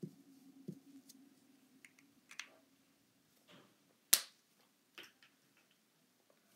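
Marker tip tapping dots onto paper in a few soft taps, then one sharp, loud click about four seconds in as the drawing is finished, with a smaller click about a second later.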